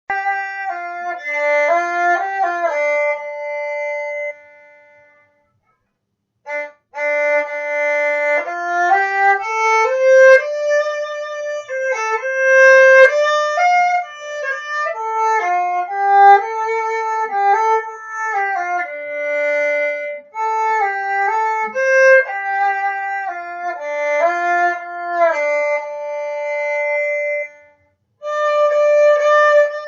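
Bowed violin melody recorded through an MXL 770 condenser microphone and a small mixer, the tone muffled. About four seconds in the sound fades and drops out for about two seconds, and it cuts out again briefly near the end. The bow stays on the string, so the drop-outs are a fault in the recording chain, not the playing.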